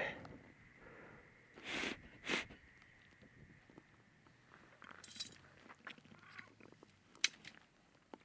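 Faint small snaps and crackles from a smoky, poorly burning wood fire, with one sharper snap near the end. Two short breathy puffs come about two seconds in.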